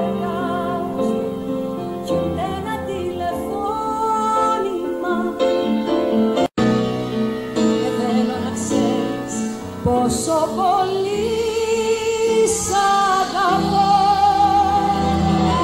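A woman singing live with grand piano accompaniment, cut off by a brief dropout about six and a half seconds in. From about ten seconds she holds one long note with vibrato, a G4.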